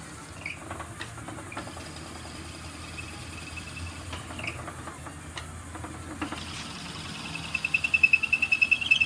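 Wood lathe running while a half-inch drill bit in the tailstock chuck bores through the spinning wooden blank, with scattered scraping clicks. About six seconds in, a high squeal sets in, pulsing about five times a second and growing louder, as the bit cuts deeper through the tenon.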